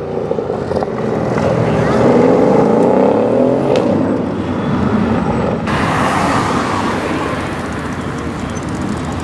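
Twin-turbo V8 of a modified Mercedes CLS 63 S AMG accelerating hard, its exhaust note rising in pitch over the first few seconds. About halfway through, it gives way abruptly to a steadier engine sound.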